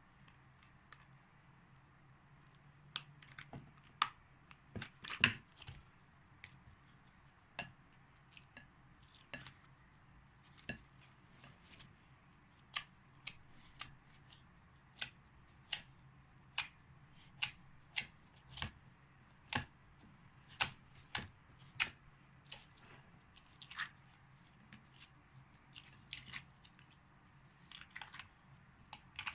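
Slime being worked and squeezed, giving sharp sticky clicks and pops at irregular intervals, roughly one a second, over a faint steady hum.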